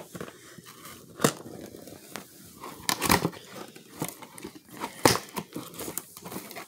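A doll's display box being unpacked: packaging rustling and crinkling as it is pulled apart, with sharp snaps and tears at irregular moments, the loudest about three and five seconds in.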